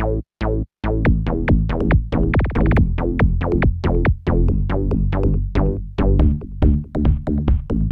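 Electronic dance music: a drum-machine beat with synthesizer, starting with a few stuttered, cut-off hits before the full beat and bass come in about a second in, with a falling synth sweep about two and a half seconds in.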